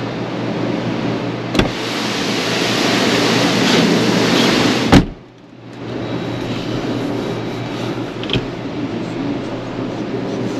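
Automatic car wash machinery giving a loud rushing noise that stops suddenly with a clunk about five seconds in. Then the overhead sectional door's opener motor runs steadily as the door rolls up.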